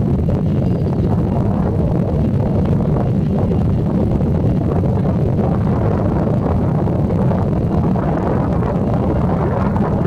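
Airbus A320neo's jet engines running at low power, a steady low rumble, with wind buffeting the microphone.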